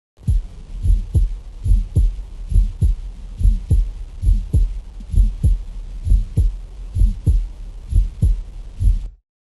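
Recorded heart sounds heard through a stethoscope: a steady lub-dub at about 75 beats a minute, each beat overlaid with a scratchy rasp, a pericardial friction rub. The recording starts just after the beginning and cuts off abruptly near the end.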